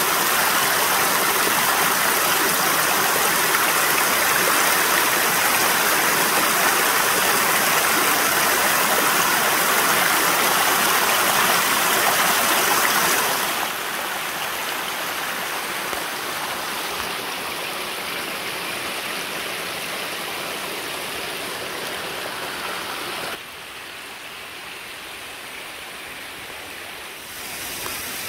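Small hill stream running over loose rocks, a steady rush of water. It drops suddenly in loudness about halfway through, drops again near the end, then rises a little.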